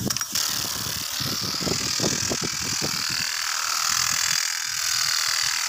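Steady loud hiss of water spraying from a big gun impact sprinkler, with a few irregular low thuds about two seconds in.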